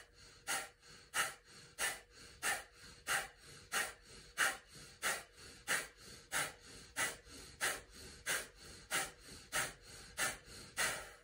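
Kapalbhati pranayama: a man's short, forceful exhalations through the nose in a steady rhythm, about one and a half a second, some eighteen sharp hissing puffs with quiet inhales between.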